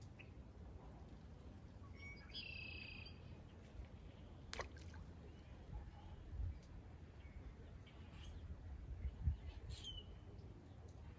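Birds calling now and then: a buzzy call about two and a half seconds in, a quick falling whistle a couple of seconds later, and a few chirps near the end. Under them runs a steady low rumble with a couple of soft thumps.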